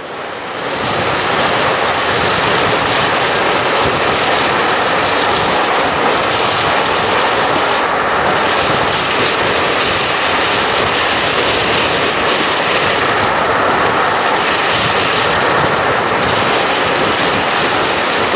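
Steady, loud rush of wind buffeting the microphone, mixed with road noise from a moving vehicle.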